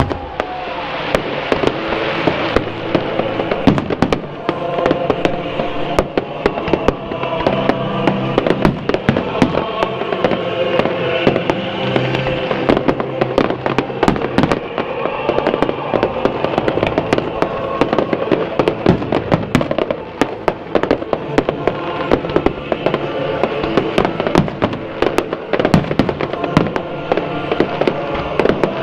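Fireworks going off in quick, irregular succession, a dense string of bangs and pops, over music with sustained notes.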